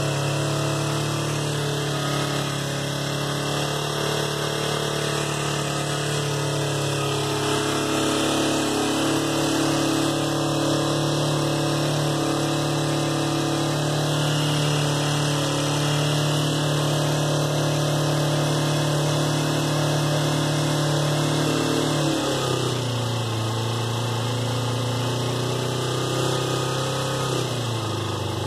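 2004 Kawasaki Ninja 250's parallel-twin engine idling at a high idle, with a knock that the owner is unsure is normal for these bikes. The idle speed drops about 22 seconds in, and again near the end.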